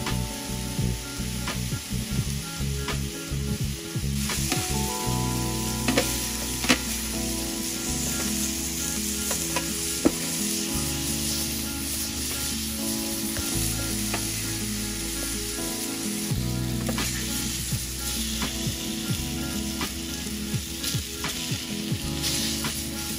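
Doner kebab meat slices sizzling steadily in hot fat in a metal tray over charcoal, with sharp clicks of metal tongs against the tray as the pieces are turned. Background music with a low bass line plays underneath.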